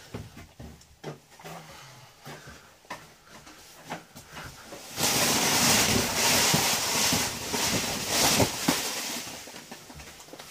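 A person crawling on hands and knees across a sailboat deck: scattered knocks and scuffs of knees, boots and hands on the deck. About five seconds in, loud close rustling of fabric takes over for about four seconds as he passes right by the microphone, then dies down.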